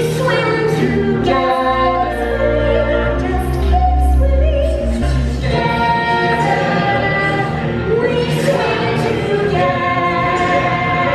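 Stage musical ensemble singing together in chorus over full musical accompaniment, with a deep bass swell a few seconds in.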